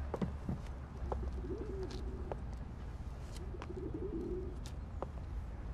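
A pigeon cooing twice in low rolling calls, about one and a half and four seconds in, over a low steady hum, with a few light clicks and taps.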